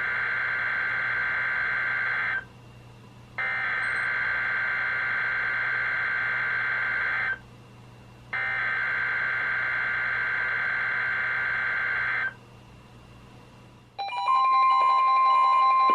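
NOAA Weather Radio SAME digital header: three raspy data bursts of about four seconds each, a second apart, sent ahead of a Required Weekly Test. About two seconds after the last burst, several weather radios set off their alerts together: a steady tone with beeping layered over it, growing louder.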